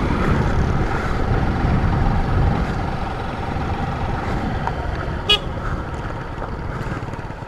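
Motorcycle running while riding, with low wind rumble on the microphone and a steady hum that fades out about halfway through. A brief high beep comes about two-thirds of the way in.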